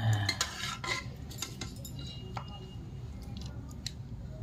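Steel serving spoon scooping and tapping while ladling pea-and-potato curry into plastic bowls: a cluster of clinks and scrapes in the first second, then scattered light clicks.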